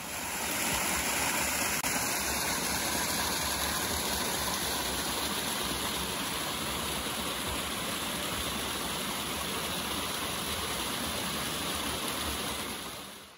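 Mountain stream water rushing in a steady, even hiss. It swells up in the first second and fades away near the end.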